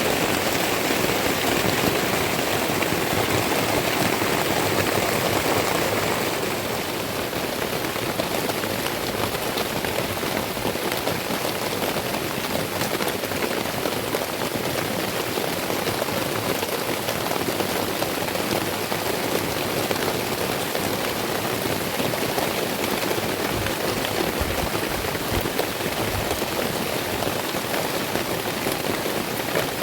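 Heavy rain pouring steadily, a dense even hiss of drops, easing slightly about six seconds in.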